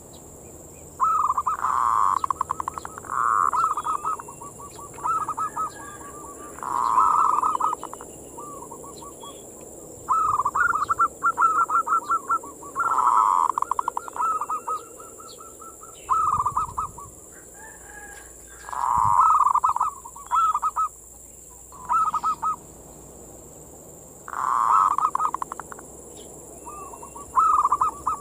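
Zebra dove (perkutut) singing its cooing song over and over: each phrase is a quick stutter of short notes ending in a longer drawn-out coo, repeated every two to three seconds.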